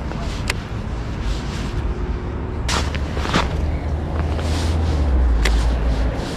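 Wind buffeting the microphone as a low rumble, heaviest a little past the middle, with a few short sharp clicks and brief swishes over it.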